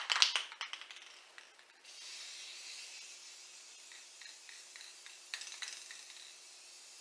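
Aerosol spray paint can: a rattle of clicks that fades out over the first second as the can is shaken, then a steady spray hiss from about two seconds in as a coat of paint goes on, with a few light ticks midway.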